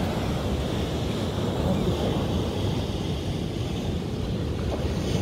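Steady wind rumbling on a phone microphone, mixed with the wash of breaking surf.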